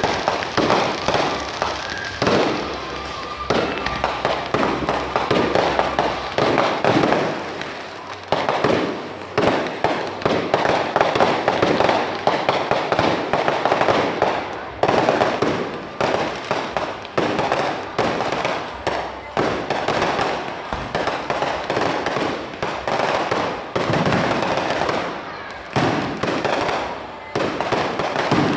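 Fireworks going off in a continuous barrage: rapid, overlapping bangs and crackling with hardly a pause.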